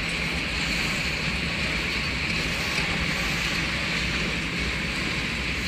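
Freight train of open wagons rolling slowly past: a steady rumble and hiss of steel wheels on rails, with no breaks or clanks standing out.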